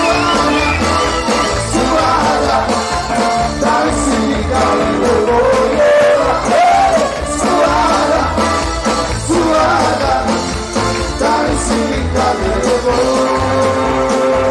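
Loud band music with a singer over a steady beat.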